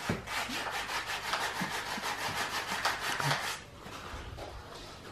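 Skirting board being hand-sanded with sandpaper: quick back-and-forth scratching strokes, about four a second, stopping about three and a half seconds in. It is being sanded down to prepare it for gloss paint.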